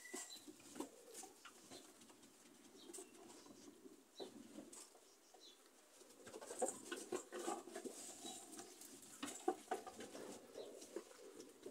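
Faint rustling, shuffling and scattered clicks from goats and sheep moving and feeding in a pen, busier in the second half.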